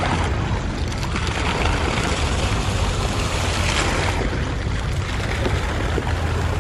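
Wind blowing on the phone's microphone: a steady rushing noise, heaviest in the low end, with the open-air background of the park under it.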